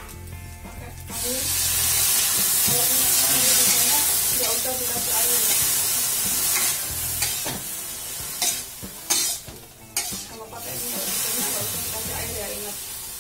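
Water poured into a hot wok of fried tempe hits the oil and sizzles loudly, starting suddenly about a second in and thinning out after several seconds as a steel spatula stirs it in. A few sharp knocks of the spatula against the wok come past the middle, and the sizzle picks up again near the end.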